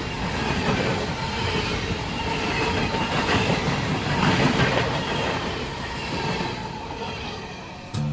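Empty CSX coal cars rolling past: a steady rumble of steel wheels on the rails with a faint squeal. It cuts off abruptly near the end and acoustic guitar music starts.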